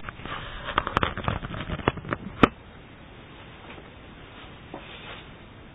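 A quick, irregular run of sharp clicks and knocks lasting about two and a half seconds, the last one the loudest, followed by a steady faint hiss.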